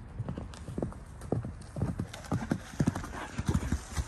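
A horse's hooves thudding on a dirt forest path as it comes up close, in irregular footfalls several a second.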